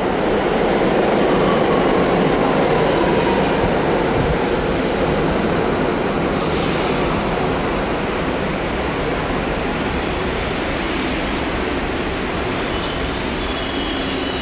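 R62A subway train running into the station and braking to a stop. A loud steady rumble of steel wheels on rail is strongest as it comes alongside and eases off as it slows, with high-pitched brake squeals near the end.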